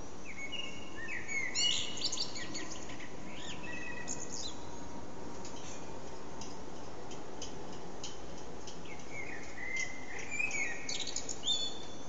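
Common blackbird singing two phrases, the first about half a second in and the second from about nine seconds. Each phrase is a fluty warble that goes into a higher, squeaky twitter, with faint high chirps between the phrases.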